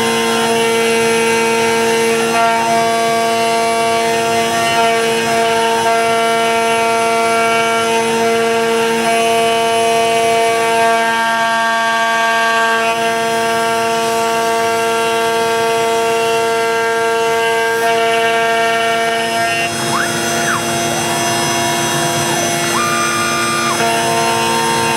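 CNC router carving a hardwood Karri neck blank: the spindle and the axis stepper motors whining in several steady tones that step to new pitches as the feed moves and changes direction, with brief gliding tones about 20 and 23 seconds in, over the noise of the cut.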